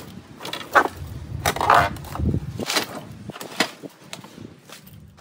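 Irregular crunching, rustling and scraping of rubbish being rummaged through by hand, with a few sharp clicks and knocks.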